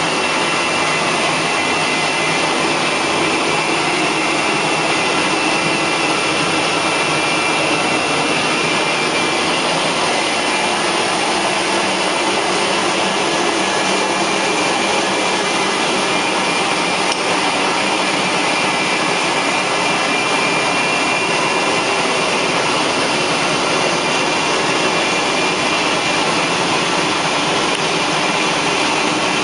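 Carpet extraction machine's vacuum running steadily and loudly through a Rotovac 360i rotary cleaning head, with a faint high whine over the rushing suction.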